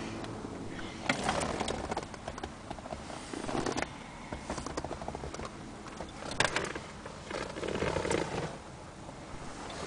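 Handling noise: irregular rustles, scrapes and knocks as a handheld camera is moved about inside a car, over a faint steady hum.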